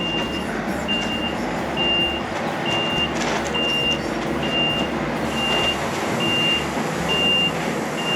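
Concrete mixer lorry reversing: its reversing alarm beeps steadily, a single high tone a little more than once a second, over the lorry's engine running.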